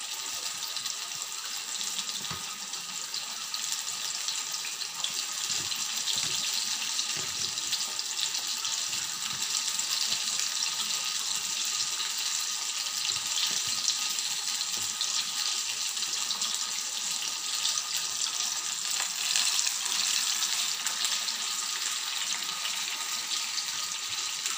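Breaded chicken pieces deep-frying in hot oil: a steady sizzle.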